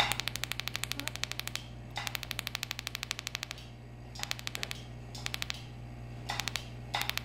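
Electric mole-removal pen sparking against the skin in rapid clicking runs of about a dozen clicks a second. Two long runs come first, then several short bursts as the tip is touched on and off the mole. A steady low hum runs underneath.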